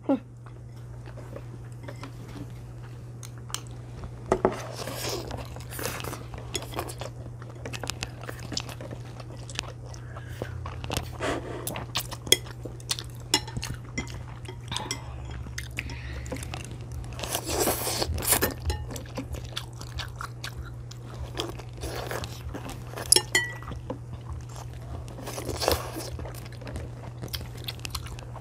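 Two children eating noodles and chicken close to clip-on microphones: chewing and biting, now and then a longer slurp, and chopsticks clicking against plates and bowls in quick, irregular ticks, over a steady low hum.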